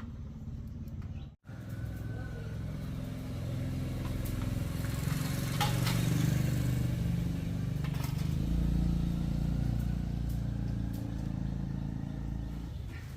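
Motorcycle engine running with a steady low drone, growing louder toward the middle and then slowly fading.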